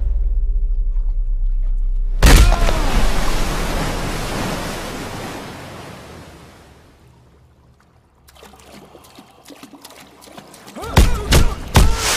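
Film fight sound effects. Over a low held drone, a heavy hit lands about two seconds in with a large splash of water, and the spray fades away over several seconds. Sharp blows start again near the end.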